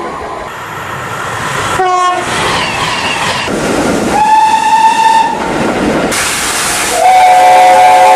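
Train horns sounding over the noise of a passing train. There is a brief blast about two seconds in, a steady single-note horn lasting about a second midway, and a louder chord horn of several notes held near the end.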